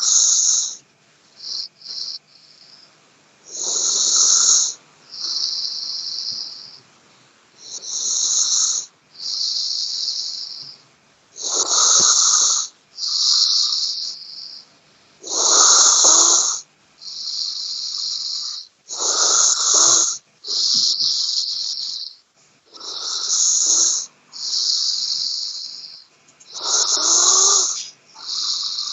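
A person snoring: a loud snore about every four seconds, eight in all, each followed by a softer hissing breath.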